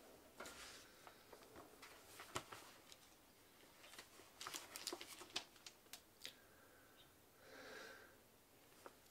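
Faint rustling and crinkling of a glossy magazine handled and opened by hands in thick work gloves: a string of small clicks and paper crackles, busiest in the middle, then a softer swish near the end.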